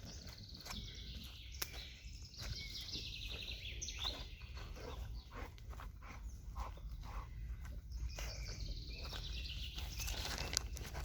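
Forest songbirds singing, with repeated high trilled phrases. Scattered clicks and rustles and a low rumble run underneath.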